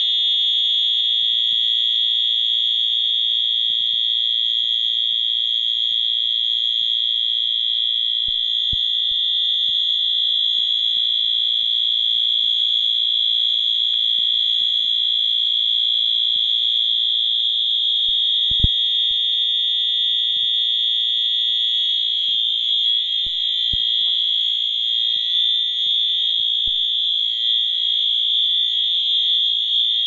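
Wheelock AS electronic fire alarm horn sounding a loud, steady continuous (uncoded) alarm tone. The fire alarm panel is in alarm because its duct smoke detector was set off with canned smoke.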